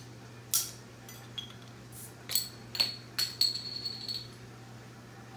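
Crown cap prised off a glass beer bottle with a bottle opener: a sharp click about half a second in. It is followed by a string of light clinks and knocks, a few ringing briefly, as metal and glass touch hard surfaces.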